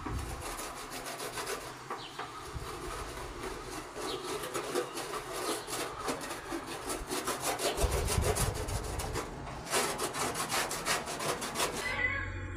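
Wooden spatula scraping back and forth across a metal sac griddle in quick, repeated rasping strokes, busiest near the end.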